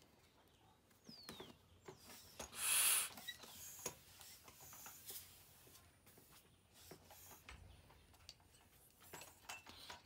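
Rubber scooter inner tube being handled, squeaking and rubbing, while it is checked for holding air. There is a short hiss of air about three seconds in and a fainter hiss around five seconds. The tube turns out to have a hole.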